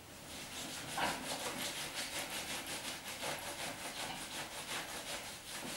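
Hands rubbing briskly back and forth over a lying patient's hip and trousers during a manual-therapy massage: an even, rapid swishing, about five or six strokes a second.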